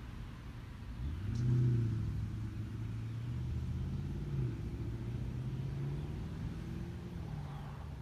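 A motor vehicle's engine running and accelerating, its low pitch rising about a second in, dropping back around the middle and climbing again.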